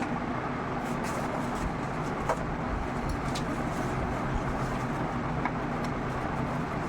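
Steady background hum and noise, with a few light clicks and taps.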